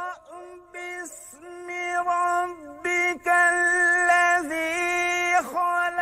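A single voice sings a melody, with long held notes joined by sliding, ornamented turns.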